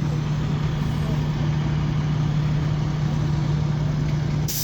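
A large vehicle's engine idling steadily with a low, even hum, and a brief hiss near the end.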